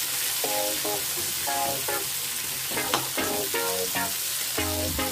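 Sliced onions and green chillies sizzling in hot oil in a metal kadai, stirred with a metal spatula that scrapes and knocks against the pan, over background music of short plucked notes.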